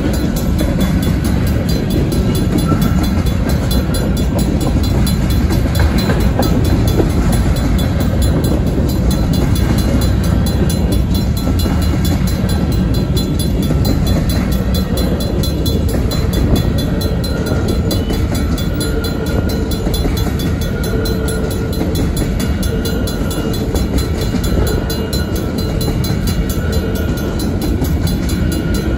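Covered hopper cars of a Union Pacific freight train rolling past: a steady rumble of steel wheels on rail, with a faint thin whine that comes and goes.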